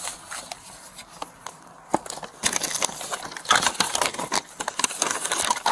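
Paper rustling and crinkling close to a body-worn camera's microphone as the citation is handled, with scattered sharp clicks and handling noise. It is heaviest in the second half.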